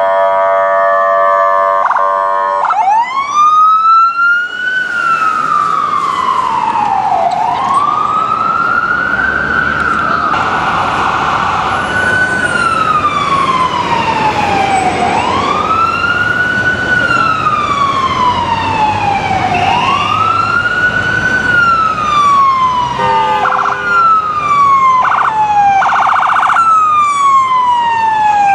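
Ambulance's electronic siren in slow wail, rising, holding and falling about every four and a half seconds. A horn blast of several held tones comes just before the wail begins, and short horn blasts sound again near the end.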